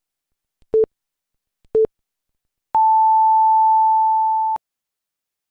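Countdown beeps from an intro animation: two short, lower electronic beeps a second apart, then one long, higher beep held for nearly two seconds.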